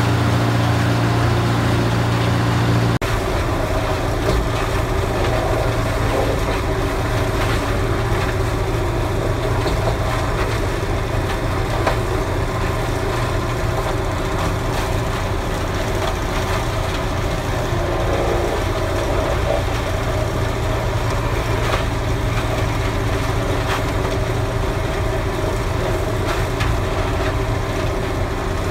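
Duratech HD-10 tub grinder running under load, a steady engine drone mixed with the crackling and knocking of wood and brush being ground in the tub. The sound shifts abruptly about three seconds in.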